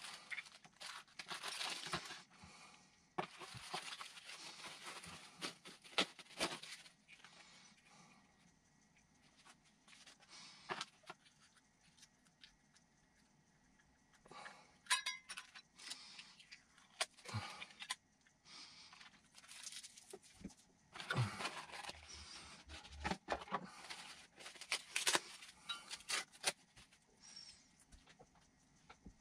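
Plastic parts bags and foam packaging wrap crinkling and rustling in irregular bursts as they are handled and pulled from a cardboard box, with a few light knocks and clicks of parts being set down.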